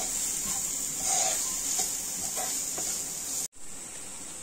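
Chopped onions and green chillies sizzling in oil in a nonstick frying pan, stirred with a wooden spatula: a steady hiss with light scraping. The sound breaks off briefly about three and a half seconds in, then the sizzle resumes more quietly.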